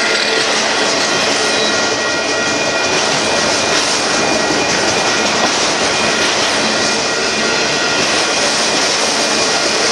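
Union Pacific freight train's autorack cars rolling past close by: a steady loud rumble and rush of steel wheels on rail, with a faint high whine over it.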